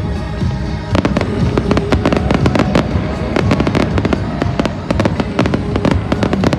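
Fireworks bursting in rapid succession, a dense run of bangs and crackles that thickens about a second in, over the show's accompanying music.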